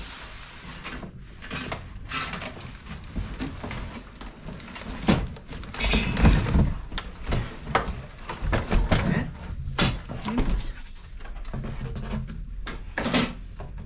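Irregular knocks, clatter and rustling as a new lawn scarifier is lifted out of its padded cardboard packaging and its parts are handled, busiest and loudest in the middle.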